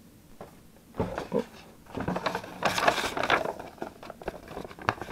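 Paper poster and cardboard card-game packaging being handled and shuffled: a run of rustling and crinkling with small taps, starting about a second in and loudest around three seconds in.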